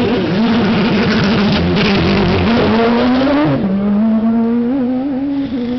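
Porsche RS Spyder LMP2 race car's 3.4-litre V8 accelerating away from a pit stop: the pitch climbs, drops sharply at an upshift about three and a half seconds in, then holds steady.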